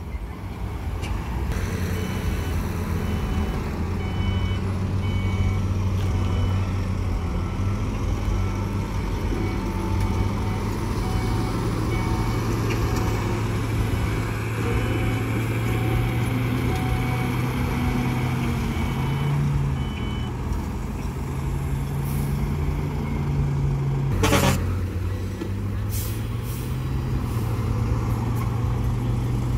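Heavy diesel dump truck engines running and moving, with a reversing alarm beeping in regular pulses for much of the time. A short sharp hiss of air brakes comes late on.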